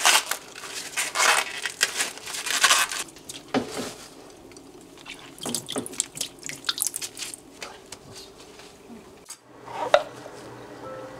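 Water splashing and dripping in a stainless steel bowl as vegetables are scrubbed and rubbed by hand in it, loudest in the first three seconds. About ten seconds in, a single knock of a knife cutting through a king oyster mushroom onto a wooden cutting board.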